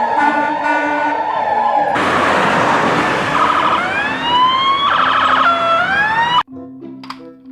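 Toy police ambulance's electronic sound chip playing. A repeating beeping jingle gives way about two seconds in to engine noise with rising siren whoops, which cut off suddenly near the end. A few light plastic clicks follow.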